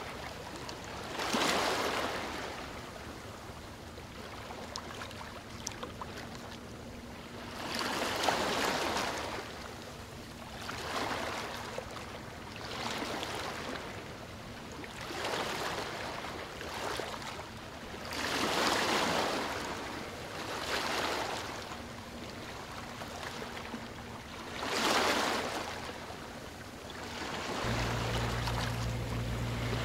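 Rushing water that swells and ebbs every two to three seconds. Near the end a steady low hum comes in.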